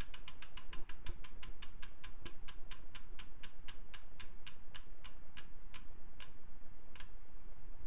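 Rear freehub pawls of a Williams Cycling wheel with a ceramic hub, clicking as the wheel freewheels down to a stop. The clicks slow from several a second to about one a second and end about seven seconds in.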